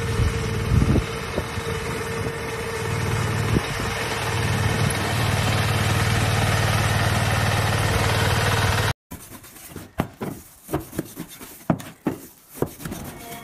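Small engine of a brush cutter with a reaper attachment running steadily while cutting tall standing grain. It stops abruptly about nine seconds in and gives way to scattered sharp knocks of a cleaver cutting sesame brittle on a wooden board.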